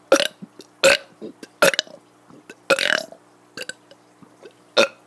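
A child burping loudly: five burps in quick succession, the fourth the longest.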